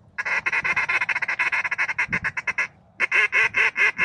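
Duck call blown close by in a fast, even run of quacking notes, several a second, for over two seconds, then a short second run of about seven notes after a brief pause, calling to an incoming duck.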